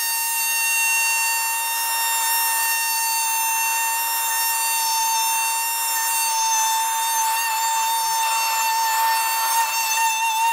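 Fein MultiMaster oscillating multi-tool running at a steady high whine while plunge-cutting straight lines through the model's plastic deck.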